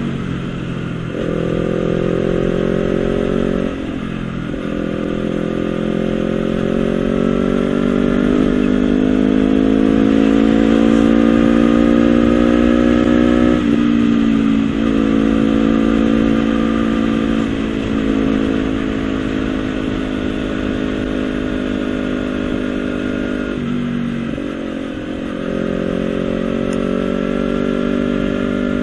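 Honda CBR250RR's parallel-twin engine running through a Villan SV1 slip-on exhaust. The revs climb slowly for long stretches and fall back sharply several times.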